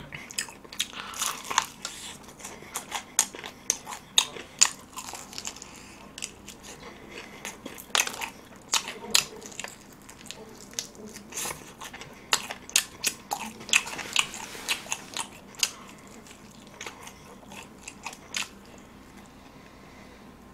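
Crunching bites and chewing of an extra-crispy Noorang Tongdak fried chicken drumstick. The crisp coating crackles in quick clusters of sharp crunches, which thin out near the end.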